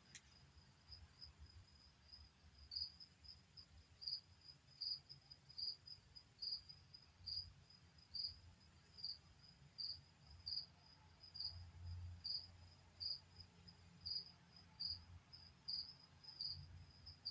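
A cricket chirping faintly and steadily: a short high chirp repeated a little more than once a second, beginning about three seconds in, over a faint low hum.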